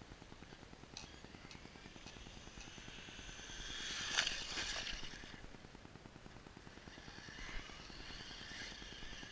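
Traxxas Slash RC truck driving past: its motor whine and tyre noise swell from about three seconds in, peak a little after four seconds and fade, then rise again more faintly near the end.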